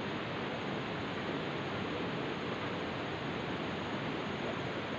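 Steady rushing of river water flowing over rocks, an even hiss without breaks.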